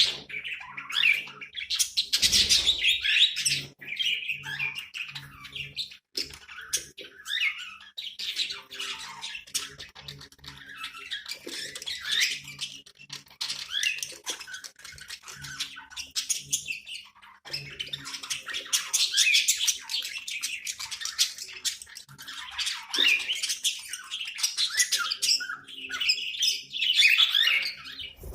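A group of budgerigars chattering and warbling continuously, with sharp squawks and chirps mixed in.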